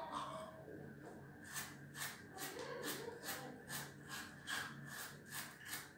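Toothbrush scrubbing teeth, quick back-and-forth scraping strokes about three a second, clearer from about a second and a half in.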